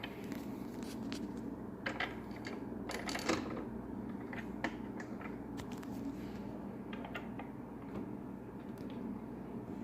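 Small cam-lock parts handled and fitted by hand: scattered light clicks and short scrapes, the sharpest a little over three seconds in, over a steady low background hum.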